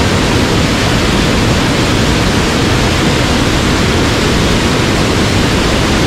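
Mountain stream water rushing steadily over rocks, loud and close.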